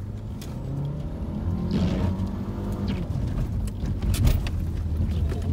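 Subaru Impreza's flat-four engine heard from inside the cabin, its revs rising and falling as the car drifts through snow. There is a brief hiss about two seconds in, and a few thumps, the loudest just after four seconds.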